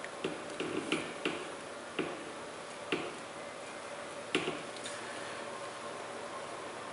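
Scattered light clicks and ticks from small hand tools, about nine in all and mostly in the first half, as the trimmed-off strain gauge lead wire ends are picked away.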